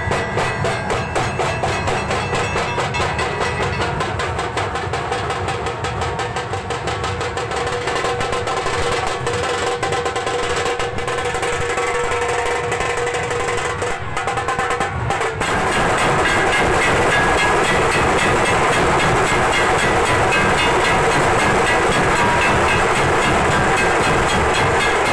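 Dhol-tasha troupe drumming: many large barrel-shaped dhol drums beaten with sticks in a fast, even rhythm. About fifteen seconds in the playing shifts to a louder, denser roll that runs on.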